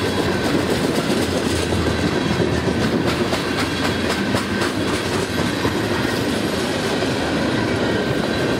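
Cars of a mixed freight train rolling past: a steady rumble of wheels on rail with the clickety-clack of wheels over the rail joints, a few clacks standing out around the middle.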